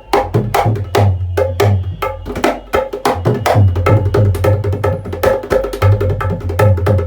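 Dholak played by hand in a fast, dense rhythm to check its tone: quick sharp strokes on the treble head ring with a steady higher note, over low, sustained bass-head strokes that come and go in stretches.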